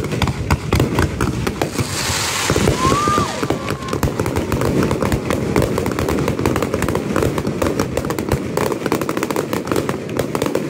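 Fireworks display: a rapid, continuous barrage of aerial shell bursts with crackling, many bangs overlapping, and a brief whistle about three seconds in.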